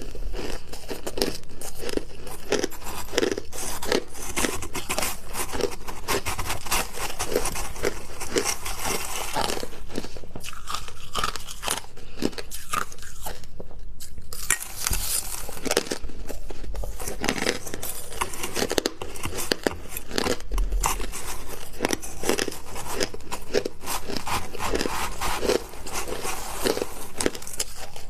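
Hard crushed ice crunching between the teeth, dense, rapid crackling bites and chews close to the microphone, with a brief pause about halfway through.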